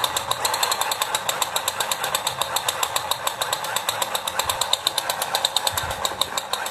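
Battery-powered toy assault rifle firing its rapid machine-gun rattle with the trigger held, an even run of about ten clicks a second.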